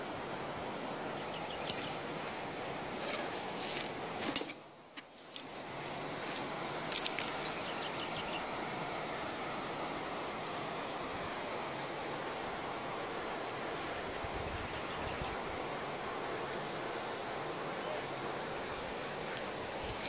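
Steady rush of a shallow river running over rocks, with an insect's steady high-pitched buzz over it. A sharp knock just after four seconds, then the sound drops out for about a second before the river comes back.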